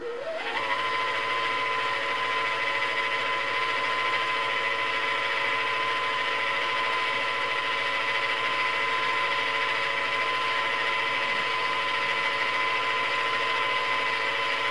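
Janome CXL301 computerised sewing machine's motor winding a bobbin at full speed. Its whine rises quickly as it spins up in the first second, then holds a steady high whine.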